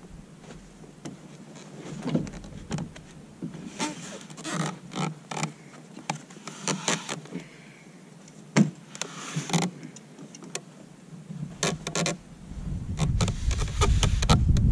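Handling noise of an Old Town Predator PDL kayak being loaded onto a homemade PVC beach cart: irregular knocks, clicks and short scrapes as the stern is lifted and the cart is pushed under the hull, with one sharp knock about halfway through. A low rumble builds near the end.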